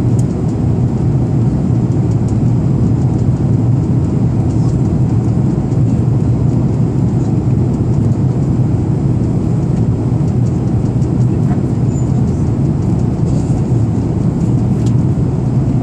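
Airbus A340-300 cabin noise heard from a window seat over the wing: a steady low rumble of the four CFM56 engines and the airflow while the airliner descends low on approach.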